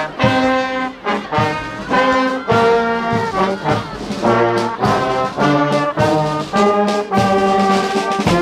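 Brass band playing a tune at close range, with trombones and a euphonium-type horn. The band moves through a melody of held notes that change about twice a second.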